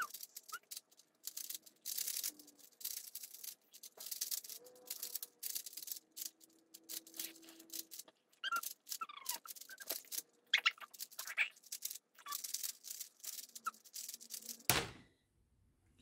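Rubik's cube being turned quickly, a dense, irregular clatter of small plastic clicks and scrapes from the cube's layers, fast-forwarded. It breaks off after a short louder burst near the end, when the solve finishes.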